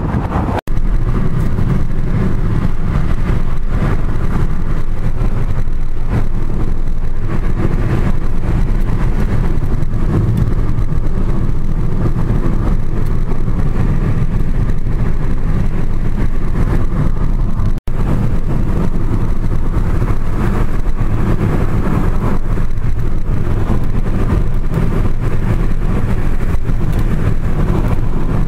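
Steady road and engine noise of a car driving, heard from inside the cabin. It cuts out sharply for an instant twice, about half a second in and about 18 seconds in.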